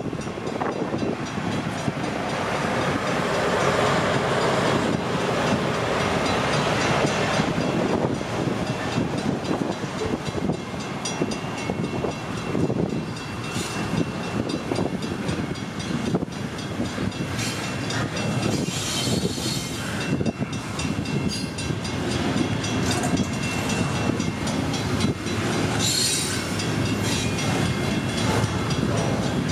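Double-stack container well cars of a freight train rolling past, wheels rumbling and clicking steadily over the rail joints. Brief high-pitched wheel squeals come now and then, strongest past the middle and near the end.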